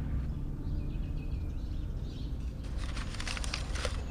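Paper slips rustling and crinkling as a hand rummages through them in a plastic bowl, starting about two and a half seconds in, over a steady low background rumble.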